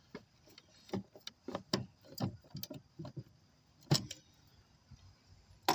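Irregular metallic clicks and clinks of hand tools, a ratchet on a socket extension working the fan shroud bolts, with the sharpest knock about four seconds in.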